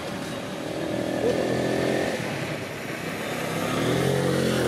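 Engine of a passing motor vehicle, its pitch rising and falling, growing louder toward the end.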